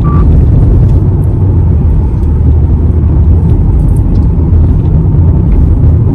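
Steady low rumble of a car driving, heard from inside the cabin, with a few faint ticks over it.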